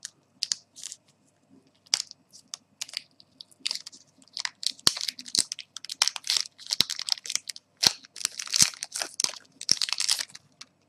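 Clear plastic wrapper crinkling and crackling as a phone battery is worked out of it by hand: scattered crackles at first, much busier from about four seconds in.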